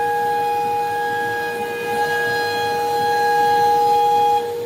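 Background music of long held notes, with one low note sustained throughout and higher notes above it that break off near the end.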